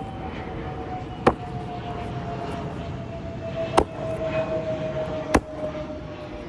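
Car floor mat slapped against a tree trunk to knock the dust out: three sharp slaps a couple of seconds apart, over a steady drone that slowly falls in pitch.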